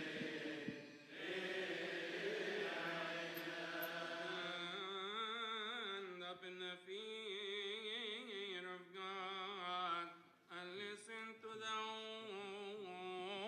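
Coptic liturgical chanting: a long, drawn-out melismatic line sung by one voice, its pitch wavering slowly, with a short break about two-thirds of the way through.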